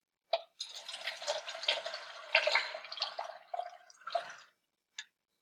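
Hydrogen peroxide being poured: a stream of liquid running into a container for about four seconds. A short click comes just before the pour starts and another near the end.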